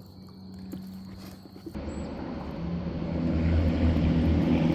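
A low, steady engine drone starts abruptly about two seconds in and grows louder.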